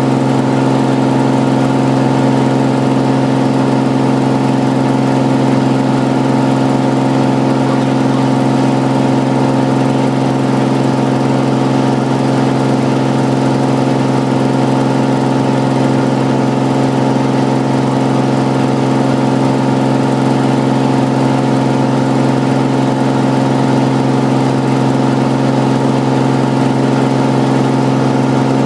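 Cirrus SR22's six-cylinder piston engine and propeller running steadily, an even drone that holds one pitch throughout.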